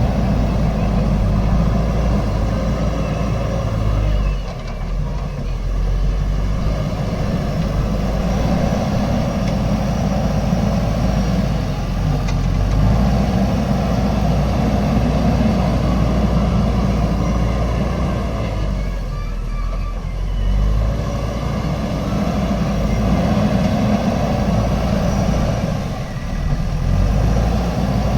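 JCB 3DX Super backhoe loader's diesel engine running under working load, steady and loud, its note dipping and picking up again about three times as the machine works.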